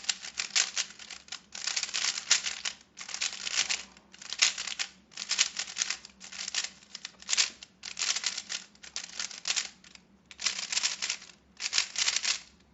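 Rubik's Speedcube, a plastic puzzle cube, being turned fast by hand: its layers click and clatter in about a dozen quick runs of turns, each under a second, with short pauses between.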